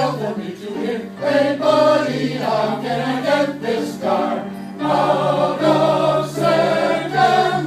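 Senior choir singing together, with accompaniment under the voices.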